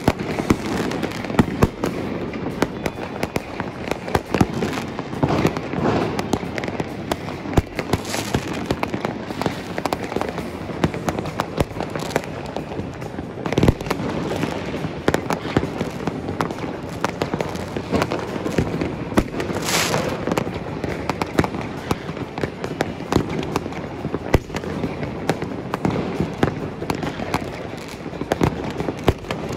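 New Year fireworks going off all over a city at once: an unbroken mass of crackling and rapid bangs from many aerial shells and barrages. One sharper bang stands out about twenty seconds in.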